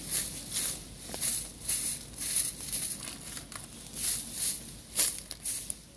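Dry leaves and debris rustling and crackling in quick, uneven strokes, about two a second, with one sharper crackle about five seconds in.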